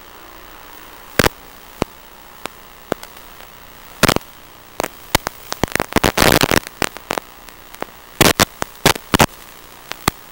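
Steady static hiss broken by sharp crackles and pops: scattered single ones, a dense cluster about six seconds in and another near the end. It has the sound of an analog FPV video link's audio channel recorded on the receiver's DVR, with no motor sound in it.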